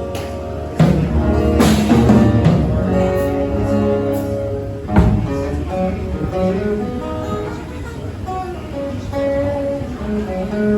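Guitar being played: chords strummed and left ringing into sustained notes, with a sharp, loud stroke about five seconds in.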